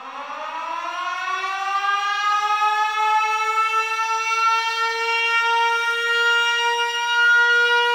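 A siren winding up: one wailing tone that rises steeply in pitch from the start, then levels off into a steady, held note, growing louder as it climbs.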